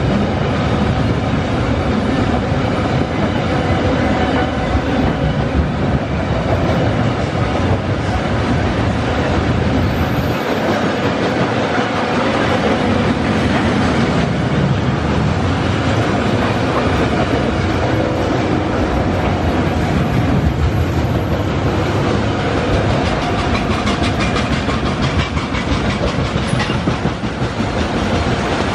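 Freight train wagons rolling past at about 60 km/h: flatcars loaded with steel billets, then container flatcars, making a steady rolling noise of steel wheels on the rails with frequent clicks.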